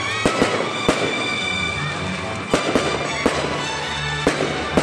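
Aerial fireworks bursting overhead: about nine sharp bangs, several in quick clusters, over steady background music.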